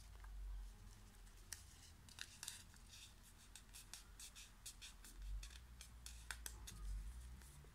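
A square sheet of origami paper being folded and creased by hand: a faint run of quick, crisp paper crackles and rustles, thickest through the middle.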